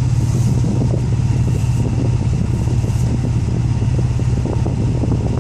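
Car engine idling steadily, heard from inside the cabin as an even low hum.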